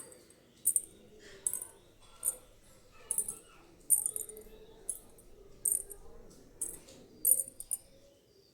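Metal ankle bells (anklets) jingling in an even, slow rhythm, about one jingle every 0.8 seconds, like someone walking while wearing them.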